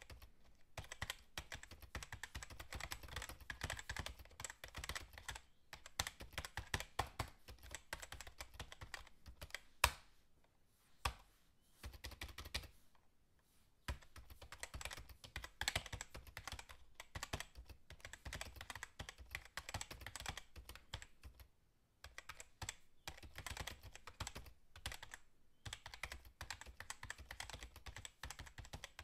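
Typing on a computer keyboard: quick runs of keystrokes broken by a few short pauses, with a couple of louder single key strikes in the middle.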